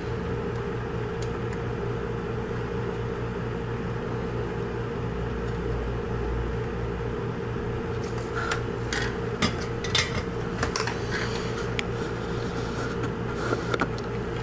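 A steady, fan-like electrical hum with a low drone. From about eight seconds in, scattered light clicks and taps as an instrument-cluster circuit board is handled on a hard bench.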